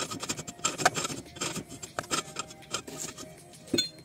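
Irregular clicks, taps and knocks of metal parts being handled on a homemade steel-pipe drill stand and its clamped cordless drill, with a sharper knock near the end. The drill motor is not running.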